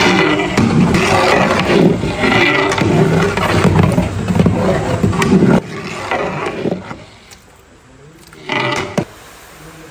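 Long steel ladle stirring vermicelli and milk in a large aluminium cooking pot, scraping and sloshing in repeated strokes over a loud rumble. About five and a half seconds in the rumble drops away sharply, and one more short scrape comes near the end.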